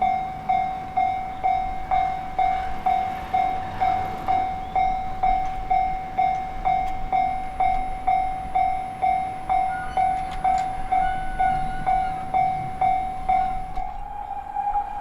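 Japanese railway level-crossing warning bell, an electronic clang repeating about twice a second, each strike ringing and fading before the next. Near the end the strikes give way to a steady, slightly higher ringing tone.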